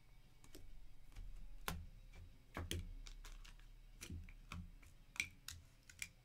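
Irregular light clicks and taps, about a dozen, from small objects being handled on a desk.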